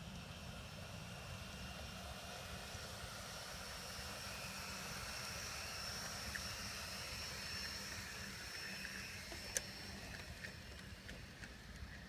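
G-scale model diesel locomotive (USA Trains New York Central PA-1/PB-1 pair) running past on garden railway track: a steady high electric-motor and gear whine, strongest as it passes, with a few sharp clicks of the wheels over rail joints near the end.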